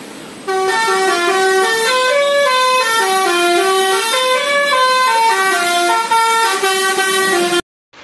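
A truck's musical horn playing a tune of short stepped notes that rise and fall one after another, cutting off suddenly near the end.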